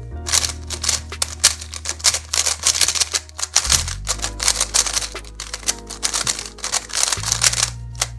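Rapid, dense plastic clicking of an MFJS Meilong 3x3 speedcube being turned fast during a solve, with a brief lull about halfway through. The cube is dry, not lubricated from the factory.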